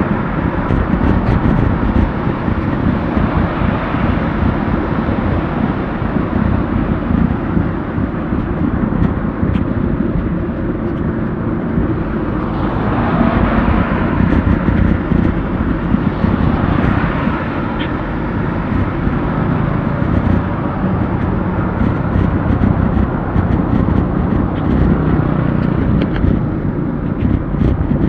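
Steady road and wind rumble on a bike-mounted action camera while cycling in traffic, with two vehicles swelling past around the middle.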